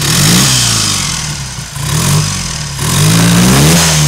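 Triumph 3TA's 350 cc parallel-twin engine, warm, being revved with throttle blips: the revs rise and fall three times, the last rise held longer before dropping back. Its ignition timing is back at the earlier marked setting, on which the owner finds it runs happier than at the manual setting.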